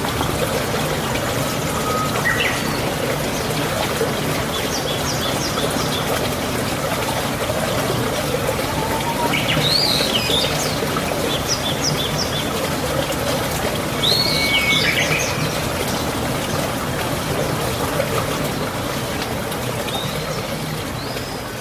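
Steady rush of running water, with birds chirping and calling now and then over it: short high chirp series and a few louder swooping calls, the clearest about halfway through and again a few seconds later.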